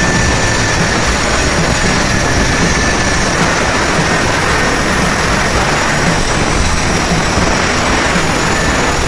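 Handheld angle grinder with a cutting disc running under load, cutting through a ceramic floor tile with a steady, loud grinding.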